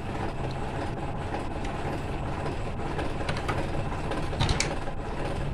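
Steady background rumble and hiss, with a few light clicks about three and four and a half seconds in as wiring and a plastic junction box are handled on a workbench.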